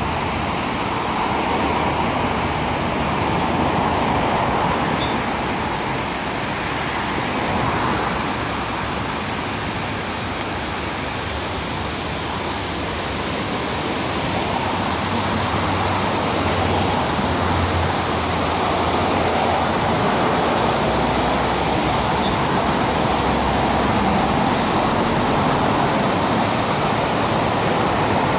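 Steady rush of the Schuylkill River pouring over the Fairmount Dam weir, mixed with passing road traffic, swelling a little in the second half. A brief high chirping comes twice.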